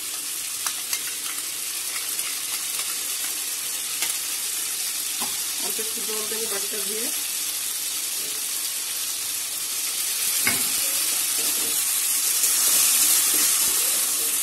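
Oil sizzling in a metal kadai as spice paste and potatoes fry, with a metal spatula scraping and clicking against the pan. The sizzle grows louder in the last few seconds as the paste is stirred in.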